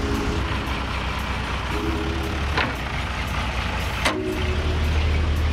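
Crane truck's engine running steadily, with a short mid-pitched hum coming and going a few times. A sharp click about four seconds in, after which the low engine hum grows stronger.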